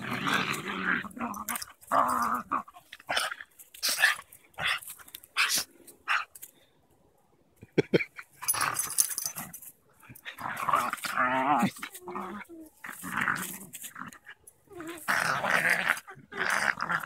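Three puppies play-fighting, growling in irregular bursts. They go quiet for a second or so about halfway through.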